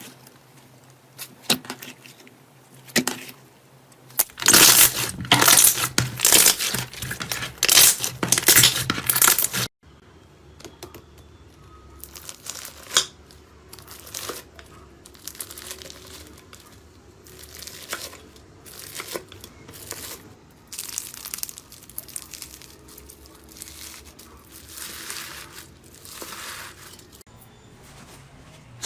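Slime being pressed and squished by hand, crackling and popping. Scattered pops at first, then a few seconds of loud dense crackling, then after a sudden cut, quieter, sparser squishes and pops.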